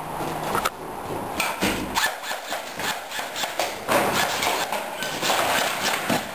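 A string of irregular sharp knocks and clacks, then quicker, denser hurried footsteps crunching over broken roof tiles and debris from about four seconds in.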